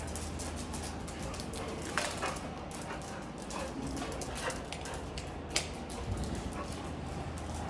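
A dog giving a couple of short barks, about two seconds in and again after five seconds, over a run of light clicks.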